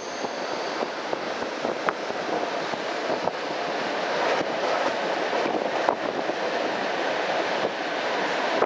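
Electric suburban train running at speed, heard from inside a carriage: a steady rumble of wheels on rails, with a few sharp clicks as the wheels cross rail joints.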